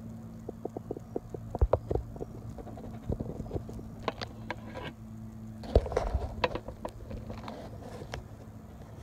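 Irregular crackling and ticking of dry fallen leaves, with a few sharp louder clicks about two seconds in and again near six seconds, over a steady low hum that stops about six seconds in.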